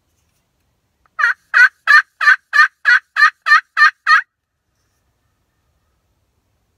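Turkey call giving a series of about ten loud, evenly spaced hen yelps, about three a second, in a sequence used to call in gobblers.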